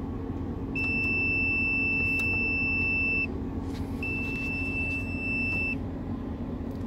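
Digital clamp meter giving two long, steady high-pitched beeps, the first about two and a half seconds long and the second a little shorter, as its test probes are put on the live contactor terminals. A steady low hum runs underneath.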